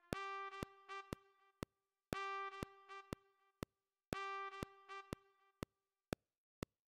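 Synthesized trumpet playback of a short accented backing figure, repeated three times two seconds apart, over a metronome click about twice a second. The trumpet drops out near the end, leaving only the clicks.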